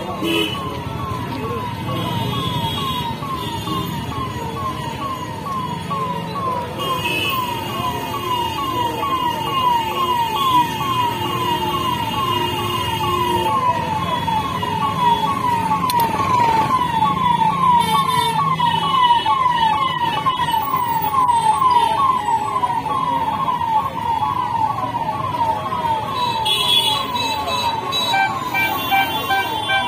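A siren-like electronic tone repeating about twice a second, each call a short falling sweep, over a steady background din.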